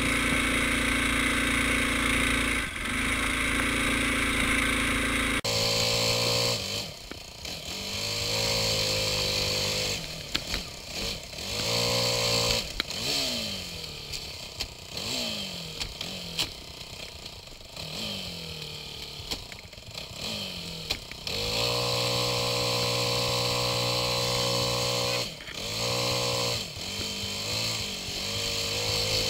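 ATV engine being ridden, revving up and down as the throttle is worked, its note repeatedly rising and falling; after a steady stretch at the start, it is held at high revs for a few seconds near the end.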